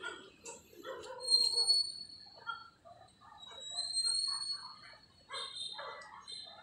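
Animal calls: many short, irregular yelps or barks, with two long, high, steady whistled notes, one about a second in and another about four seconds in.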